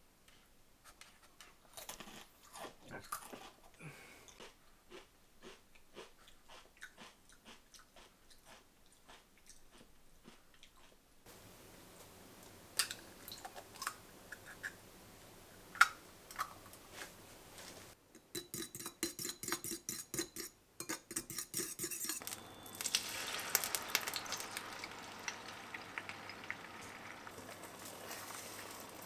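Soft, irregular small clicks and crunches for the first third. Then eggs are cracked on a bowl, with a few sharp cracks, and beaten with a fast, even clicking of about five strokes a second. From about two-thirds in, the beaten egg is poured into a hot oiled frying pan and sizzles steadily.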